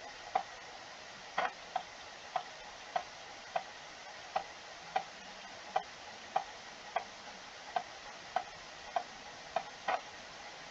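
Floppy disk drive clicking steadily while it reads a Windows 1.0 install disk, about one click every 0.6 s. The clicking stops shortly before the end, once the disk has been read.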